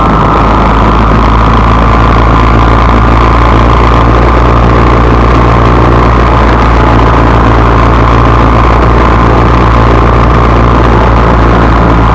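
A vehicle engine running steadily with a low drone and a steady high whine, loud throughout.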